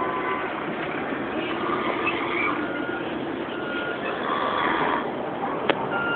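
A man snoring in his sleep, each snore about a second long and coming every two to three seconds, over steady traffic noise with a few short beeps and a sharp click near the end.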